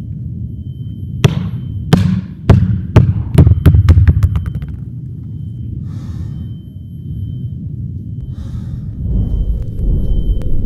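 A basketball dropped on a hardwood gym floor, its bounces coming quicker and quicker until it settles, over a low rumbling drone. Several heavy breaths follow near the end.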